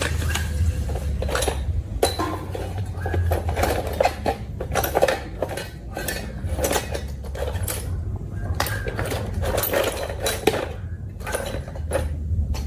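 Irregular clicks, clinks and light knocks of small hard parts being handled, over a low steady hum.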